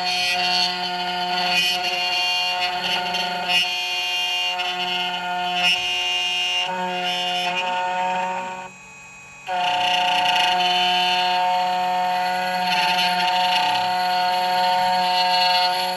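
CNC key cutting machine's spindle motor running with a steady whine as it mills a laser-cut car key blank, stopping for under a second about nine seconds in, then starting again.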